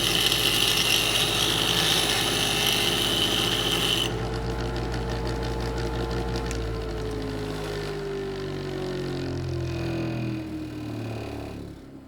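Electric grinder running under load with a harsh grinding noise for about four seconds, then free-running once the contact stops. Near the end the motor winds down with a falling whine and stops.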